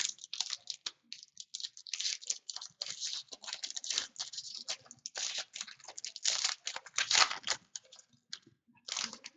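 Hands opening a trading-card pack and handling the cards: a stream of quick, irregular crinkles and clicks from the wrapper and card stock, with a short pause near the end.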